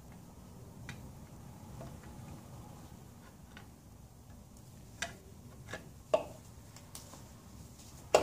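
Scattered light metal clicks and taps as an outboard lower unit is worked up against the midsection to line up its drive shaft, with one sharper click about six seconds in.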